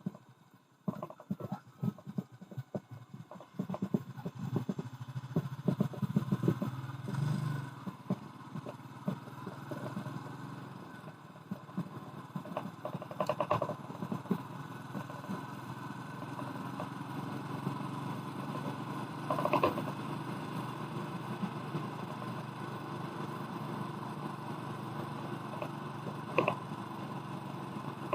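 Clattering knocks for several seconds, then the Royal Enfield Meteor 350's single-cylinder engine running steadily, with a few sharp clicks along the way.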